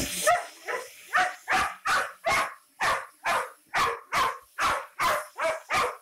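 A dog barking fast and steadily at a vacuum cleaner nozzle, about two to three sharp barks a second.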